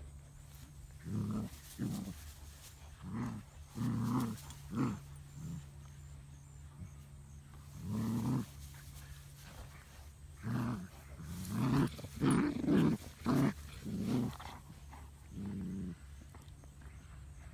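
Play growls over a rope toy in a tug-of-war between a Bernese Mountain Dog and a Great Pyrenees puppy. The growls come as about a dozen short, low rumbles, bunched a second or less apart, with a lull of a few seconds in the middle.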